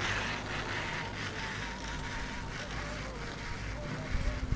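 Riding a Nippon Cable pair chairlift along its haul rope: a steady low hum with faint clicks, and a thin wavering whine that comes and goes.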